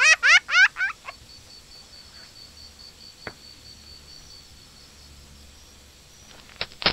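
A quick run of rising-and-falling whistle glides ends the intro jingle in the first second. Then comes a faint forest ambience with a high, evenly pulsing trill like a cricket's, and a couple of sharp clicks near the end.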